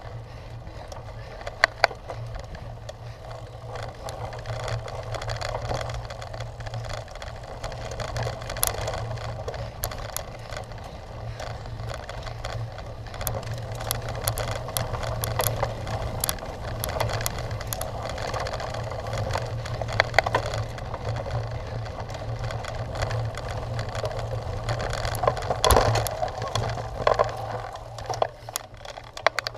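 Cyclocross bike ridden over rough ground: the bike rattles with many scattered sharp clicks and knocks over the tyre noise and a steady low rumble.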